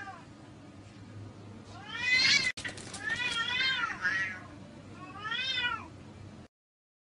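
Two domestic cats yowling at each other in a fight standoff: three drawn-out, wavering caterwauls that rise and fall in pitch, the middle one the longest.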